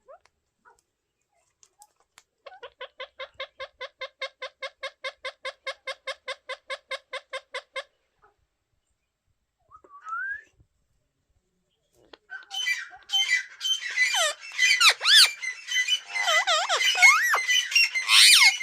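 Indian ringneck parrots calling: a fast, even run of about five harsh notes a second for several seconds, a single short rising note, then a long stretch of loud overlapping screeches with sweeping pitch.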